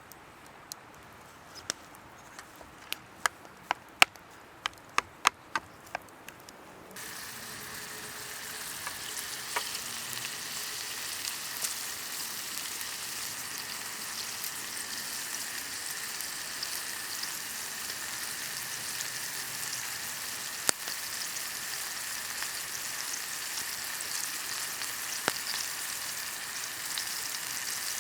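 Food frying in a hot pan over an open fire: a steady sizzle that starts abruptly about seven seconds in, with occasional pops. Before it, a series of sharp separate clicks or taps.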